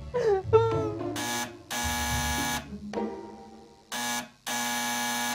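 Harsh, buzzing electronic tones come in a series of short blasts, each starting and stopping abruptly. It is a dramatic stinger from a drama score, and the last blast, about a second long, cuts off suddenly.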